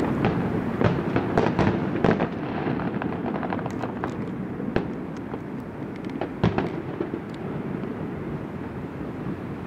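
Fireworks display: a dense run of sharp bangs and crackles for the first two seconds or so, then a steady background of fainter booms with a few single sharp bangs about five and six and a half seconds in.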